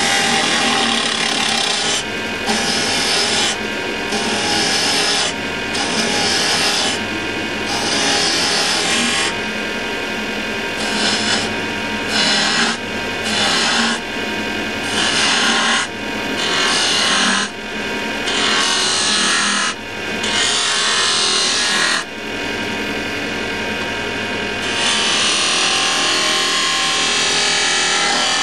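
Axminster wood lathe running while a hand-held turning chisel cuts the spinning wooden spindle. The cut is a rasping hiss in short strokes that stop and start every second or two, over the steady hum of the lathe.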